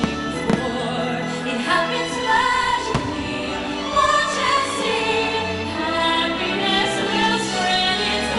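Fireworks show soundtrack: orchestral music with choir-like singing, with a few sharp firework bangs, one about half a second in and another about three seconds in.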